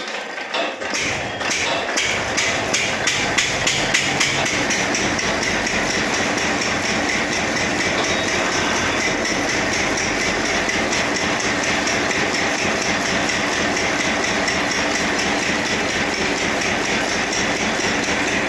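Borewell drilling rig running, with a fast, even hammering knock over the steady noise of the machine. It builds up over the first couple of seconds, then holds steady.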